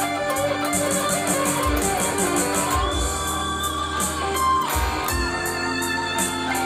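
Stratocaster-style electric guitar playing a slow, melodic lead with long held notes bent and shaken with vibrato, over a backing track with drums and bass.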